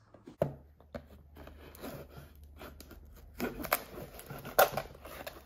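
A small knife blade slicing through the packing tape along the seam of a cardboard box: faint handling at first, then a run of scraping, crackling strokes from about halfway on.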